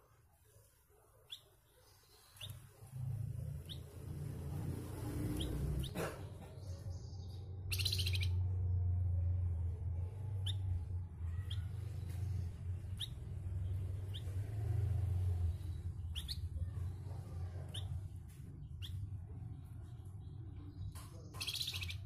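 Caged flamboyan songbird giving short, sharp chirps, roughly one a second, over a low steady hum that comes in a couple of seconds in. Two brief rustling noises, one about eight seconds in and one near the end.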